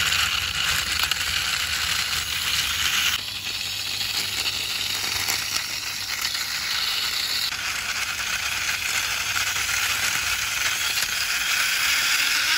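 Plastic wheels of a toy fighter jet rolling along a rough concrete ledge: a steady gritty hiss, changing in level suddenly about three seconds in and again about halfway through.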